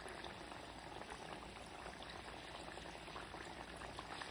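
A batch of papdi dough rounds frying in ghee that is only lightly hot over a low flame: a faint, steady fizz of small bubbles with fine crackles throughout. This is the slow, gentle frying the cook wants so the papdi cook through and turn crisp.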